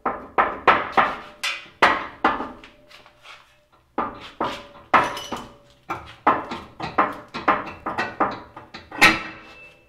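Toyota FJ Cruiser's metal front bumper beam being rocked and pulled off its frame mounts, knocking and clanking against the brackets two or three times a second. There is a short lull a few seconds in, and the loudest clank comes near the end.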